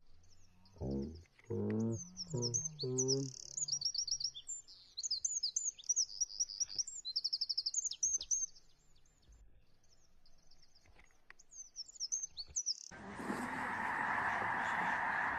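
Small birds chirping and trilling in quick repeated runs, thinning out past the middle and picking up again before the end. About a second in, several short rising pitched sounds come beneath the chirps. Near the end an abrupt switch to a steady, harsh, noisy sound.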